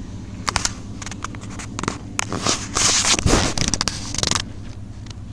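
Handling noise: the phone is moved and rubbed against something, giving a run of sharp clicks and scraping, rustling noise for about four seconds. The noise is loudest near the middle and stops before the end. A steady low hum continues underneath.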